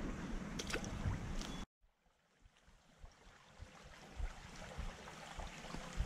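Faint creek water running over a shallow rocky riffle, with low wind rumble and handling bumps on the microphone. There is a moment of dead silence about two seconds in.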